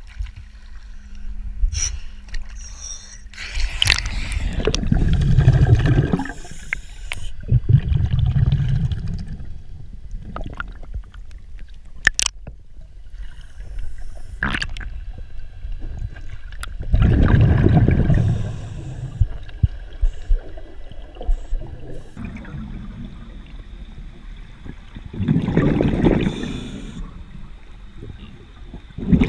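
Scuba diver breathing underwater through a regulator: a few long, bubbly low rumbles of exhaled air streaming from the regulator, spaced several seconds apart, with quieter stretches and a few sharp clicks of gear in between.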